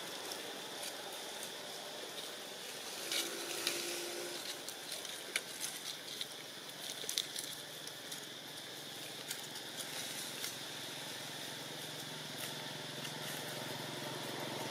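Outdoor ambience: a steady hiss with many scattered small clicks and crackles, and a low engine hum coming in during the second half and growing louder toward the end.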